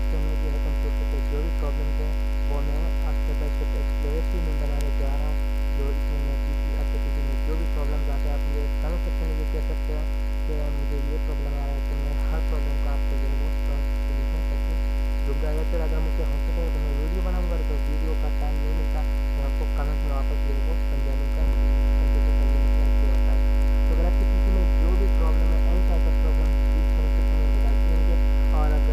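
Steady electrical mains hum with many evenly spaced overtones, getting slightly louder about two-thirds of the way through, with faint wavering sounds beneath it.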